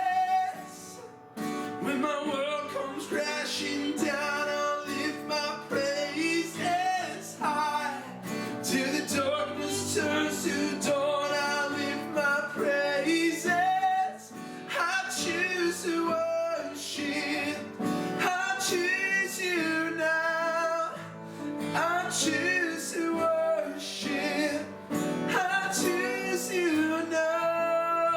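Worship song: acoustic guitar strumming with singing.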